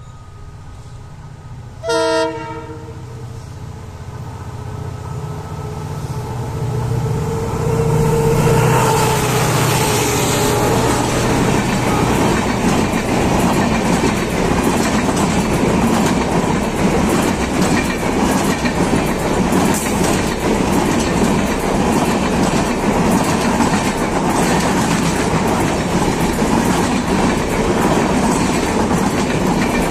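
WDP4D diesel locomotive hauling the Rajdhani Express: a short horn blast about two seconds in, then the engine growing louder as the locomotive approaches and passes at around ten seconds. After that the passenger coaches rush past with a steady clickety-clack of wheels over the rail joints.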